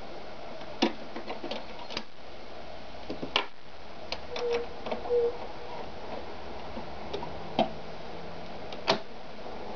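Scattered clicks and knocks from hands working an Ideal 730 sewing machine: fitting leather under the presser foot and turning the panel dials, without the machine sewing. Two brief squeaks come near the middle.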